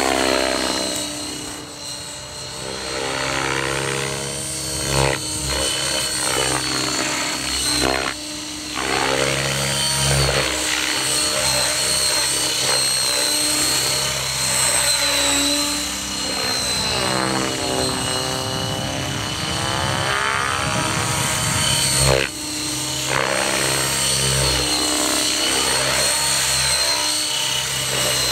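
Electric Outrage Fusion 50 radio-controlled helicopter flying 3D aerobatics. Its rotor and motor whine rise and fall in pitch as it manoeuvres and passes.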